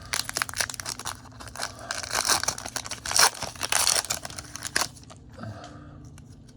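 A foil Pokémon booster pack wrapper crinkling and tearing as it is opened, in a dense run of crackles that dies down near the end.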